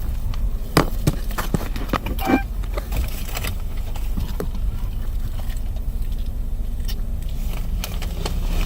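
Steady low rumble of a car, heard from inside the cabin, with a few sharp clicks and taps in the first couple of seconds.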